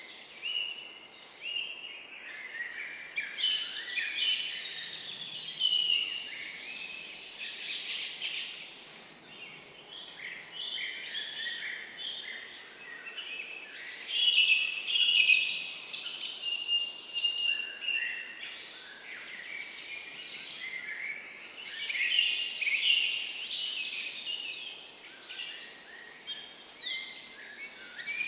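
Many small birds chirping and singing together, a dense chorus of overlapping short chirps and trills with no pause.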